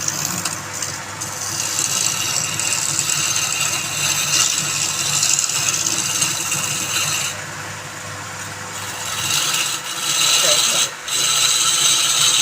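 Wood lathe running while a tool works the spinning wood: a rough hissing scrape in long spells over a steady motor hum. The scraping pauses briefly near the middle, and the hum stops about nine seconds in.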